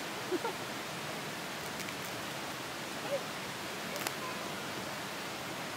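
Steady rush of flowing water from a nearby stream, with a brief faint click about four seconds in.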